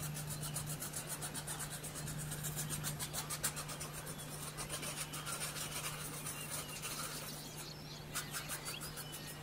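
Pencil scratching on sketchpad paper in quick, repeated short strokes, several a second, as fur strands are hatched in; the strokes pause briefly near the end.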